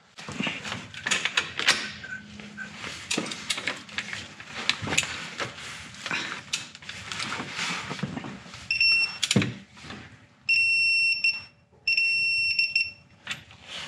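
Digital torque wrench tightening the transfer case fill plug to 27 ft-lbs. Its beeper sounds a short beep about nine seconds in, then two longer steady beeps, signalling the set torque has been reached. Before the beeps there is an irregular run of metallic clicks and knocks from the wrench and tools on the plug.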